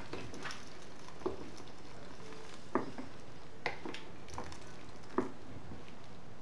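Wooden spoon stirring beans in water in a stainless-steel pot, knocking sharply against the pot about five times, with soft wet sloshing between.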